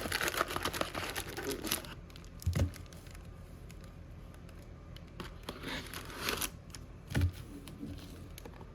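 Plastic foil wrappers of hockey trading-card packs crinkling as they are handled and torn open, with two soft thumps about two and a half and seven seconds in.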